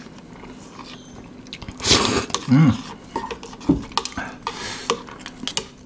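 Eating noises: a loud slurp of noodles about two seconds in and a short voiced grunt just after. Then light clicks and taps of a wooden spoon and chopsticks against a ceramic plate.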